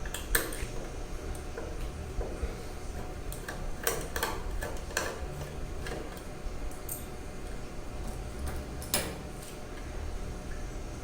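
Scattered small metallic clicks and taps of a screwdriver and screws as an SSD is fastened into a laptop's drive bay. They come in clusters: right at the start, a few seconds in, and again near the end.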